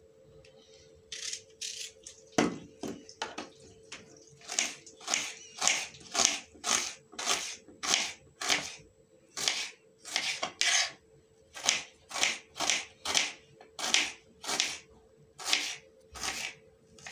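Kitchen knife slicing red onion into half-moon slices on a wooden cutting board: a few scattered cuts, then a steady run of chops about two a second.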